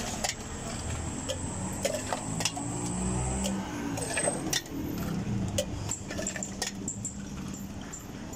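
Scattered light clinks of steel bowls, jars and utensils being handled on a counter, over a steady low rumble of street traffic.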